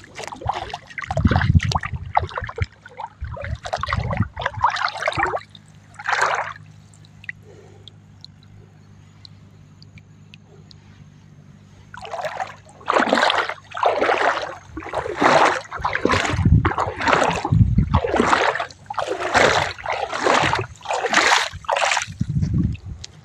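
Muddy water splashing: a few uneven splashes at first, a quieter pause, then from about halfway a steady run of splashes roughly one every 0.7 seconds until near the end.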